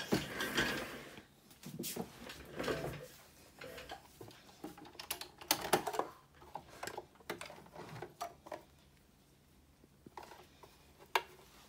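Fabric and elastic binding being handled: irregular rustling with scattered sharp clicks and light knocks.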